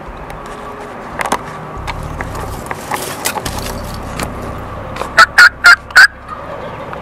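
Wild turkey toms gobbling: a loud, rattling burst of gobbles about five seconds in.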